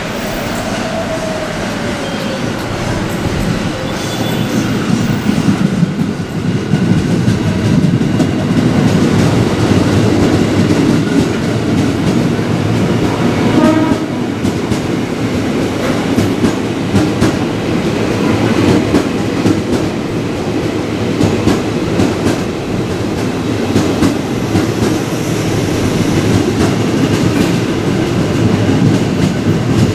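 A train running through the station, its wheels clacking over the rail joints under a loud, continuous rumble that builds over the first several seconds and then holds steady.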